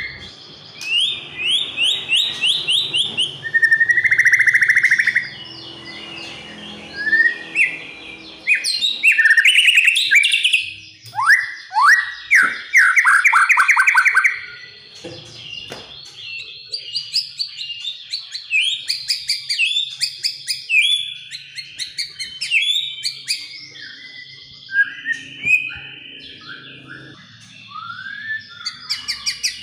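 White-rumped shama singing a long, varied song of loud whistled phrases, rapid repeated notes, down-sweeping whistles and buzzy trills. The louder phrases come in the first half, and quicker, shorter notes follow.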